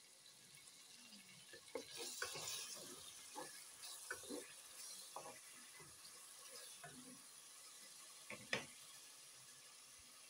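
Wooden spoon stirring chopped tomatoes and onions frying in oil in a dark coated pot: a faint sizzle under scattered scrapes and knocks of the spoon against the pot, the sharpest knock near the end.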